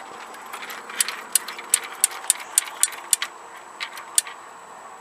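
A run of about ten sharp, irregular clicks over some three seconds, with no engine cranking, as the key is turned to start on a Cub Cadet 2130 garden tractor. It is the starter solenoid clicking without turning the engine over: the battery is too dead to start it.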